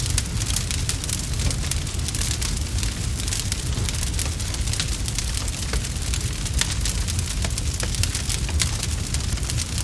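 Wood fire burning in a fireplace, crackling with many small, irregular pops over a steady low rumble.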